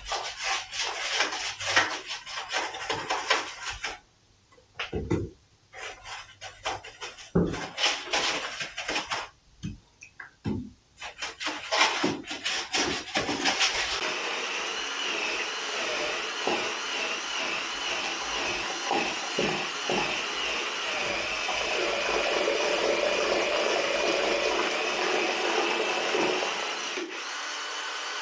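Plaster mix being stirred and scraped in a bucket: irregular scraping strokes with two short pauses. About halfway in, a steady whirring takes over and stops shortly before the end.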